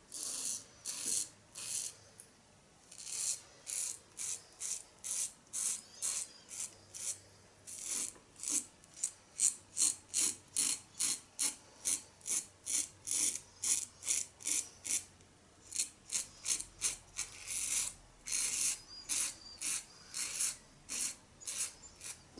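Merkur Futur adjustable double-edge safety razor on setting 4 scraping through lather and two days' stubble in short strokes, about two a second, with a couple of brief pauses.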